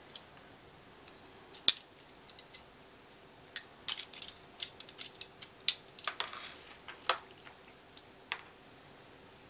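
Metal kitchen tongs clicking together and knocking against a disposable aluminium foil pan while tossing shredded pork: a run of irregular sharp clicks, densest in the middle.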